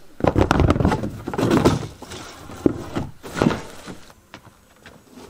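A sheet of Thermo-Ply sheathing being ripped by hand off wooden wall studs, its staples tearing loose. It comes in two loud pulls with sharp cracks over the first three and a half seconds, then quieter scuffing.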